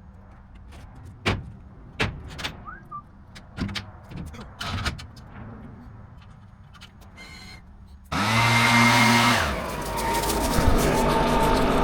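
Scattered knocks and clunks over a faint low engine hum, then a loud engine comes in suddenly about eight seconds in; its pitch drops, as under load, then climbs again near the end.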